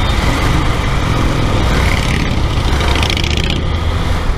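Motorcycle engine running at low speed while riding slowly through stopped city traffic, with wind on the microphone and traffic noise around it. A brief high-pitched sound stands out about three seconds in.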